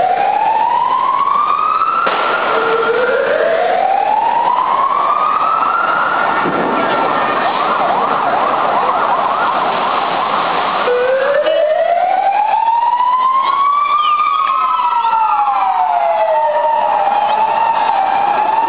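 Emergency-vehicle sirens wailing. The wail rises slowly in pitch over about three seconds and then starts again low; from about eleven seconds in, a second siren overlaps, one pitch rising while the other falls. A steady noise of the street crowd runs underneath.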